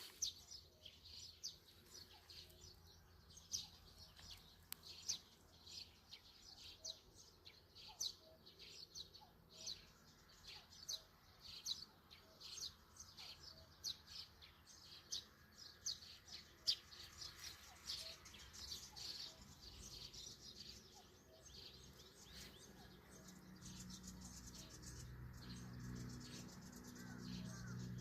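Small birds chirping faintly, with many short high calls repeated through the first two-thirds. A low rumble builds in the last few seconds.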